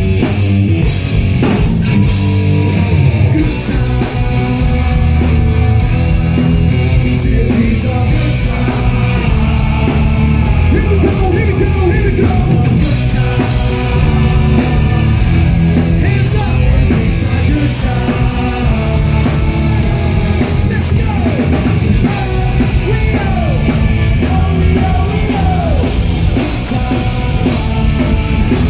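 Live rock band playing loud: electric guitar, bass guitar and drum kit, with shouted vocals over the top.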